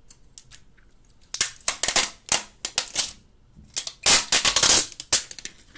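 Sharp plastic crackles and snaps from a Samsung Galaxy S3 Neo in its clear protective plastic film being gripped and turned over in the hands. They come in two clusters of rapid clicks, the louder one about four seconds in.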